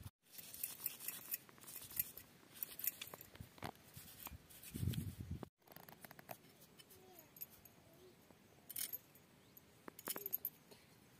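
Quick, irregular scraping and clicking of a hand-held iron blade scaling and cleaning small snakehead fish. There is a low muffled rumble about five seconds in.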